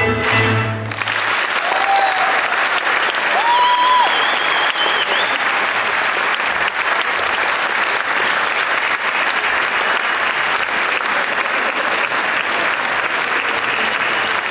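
A folk string band with fiddle and double bass ends its tune about a second in, and an audience then applauds steadily. A couple of brief high calls rise over the clapping early in the applause.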